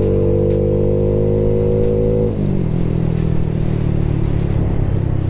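Motorcycle engine running hard, its note creeping up in pitch, then dropping suddenly about two seconds in and running on steadily at the lower pitch.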